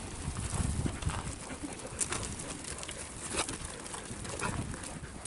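Open-air ambience with wind rumbling on the microphone, strongest in the first second or so, and scattered light knocks and rustles.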